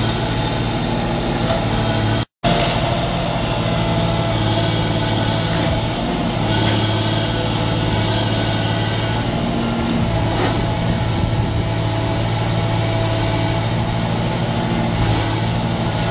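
Atlas 1704 HD tracked excavator's diesel engine running steadily as it works its grab arm, with a few scattered knocks of masonry and rubble. The sound cuts out for a moment about two seconds in.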